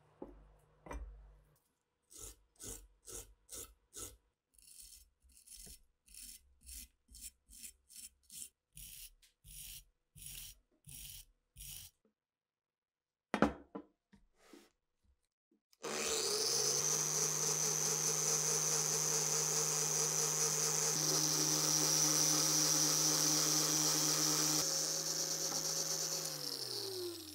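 Hand wire brush scrubbing rusty cast-iron parts in short, even strokes, about two a second. After a few more scrapes, a small rotary tool runs steadily for about eleven seconds, its pitch shifting a couple of times, then winds down near the end.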